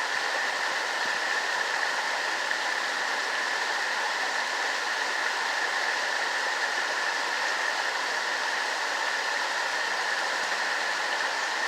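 Small creek waterfall at normal flow: water pouring over rocks in a steady, even rush.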